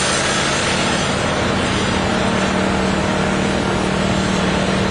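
An engine running steadily at constant speed, an even hum under a loud, unchanging noise.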